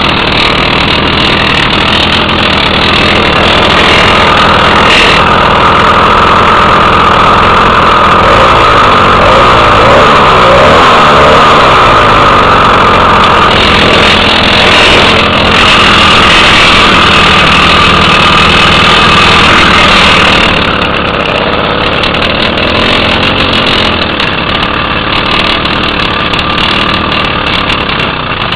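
80cc two-stroke motorized-bicycle engine running, picking up about four seconds in and easing back about twenty seconds in. It carries a strange noise that the owner believes comes from the cylinder, just below the spark plug.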